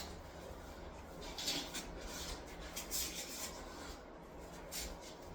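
Wet mortar being scraped and spread with a trowel for a shower-base mortar bed: a few short scrapes.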